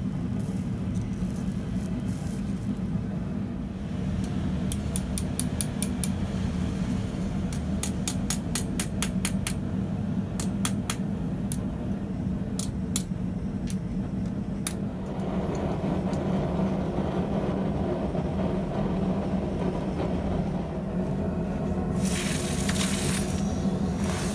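Light hammer taps on hot steel on an anvil block, seating a ball bearing in the end of a forged bar. There are two quick runs of taps and then single taps, over a steady hum. Near the end the hot piece is quenched in a bucket of water, hissing and bubbling briefly.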